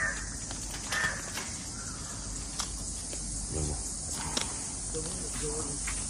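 Steady high-pitched insect chirring, with a few faint short calls and clicks over it.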